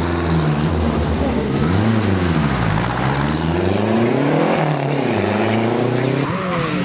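Rally-prepared Renault 5 hatchback engine accelerating hard away from a hairpin. The revs climb and drop back several times as it changes up through the gears.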